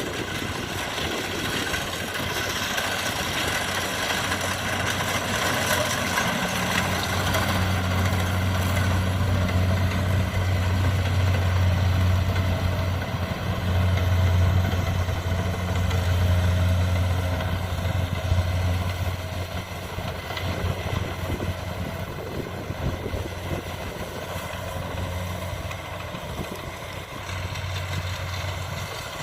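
Kubota DC70 rice combine harvester running, a steady engine and machinery drone with a deep hum that grows stronger several seconds in and eases again near the end.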